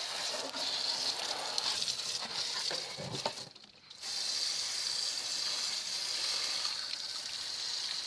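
A jet of water spraying steadily onto a Kawasaki Vulcan 900's drive belt and pulleys, rinsing off the dust that makes the belt squeal. The spray stops for about half a second roughly three and a half seconds in, then starts again.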